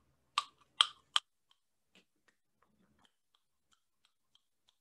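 Mouth clicks from biting down on a silicone Jawzrsize jaw exerciser: three sharp clicks in the first second or so, then faint quick ticks about three a second.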